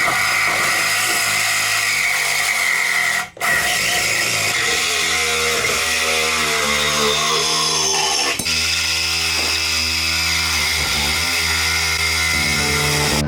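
Angle grinder cutting and grinding the old steel engine mounts off the chassis rails, a steady high-pitched whine with a short break about three seconds in and a brief dip around eight seconds.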